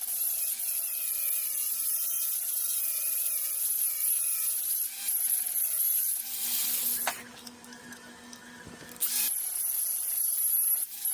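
A power tool running under load with a wavering whine and a high hiss. It stops about seven seconds in and starts again about two seconds later.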